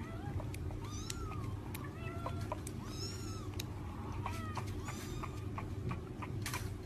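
A kitten mewing in a series of short, high, arched cries, about one a second, with small clicks in between, over a steady low hum.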